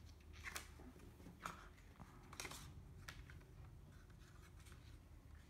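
Faint rustling and sliding of paper journaling cards being handled and laid on a pile, a few soft swishes in the first three seconds.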